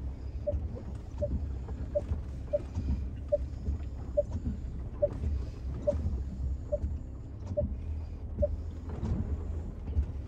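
Cabin sound of a Range Rover Velar 3.0 V6 creeping through water on gentle throttle: a steady low engine and tyre rumble. Over it, a short beep repeats about every 0.8 s until near the end.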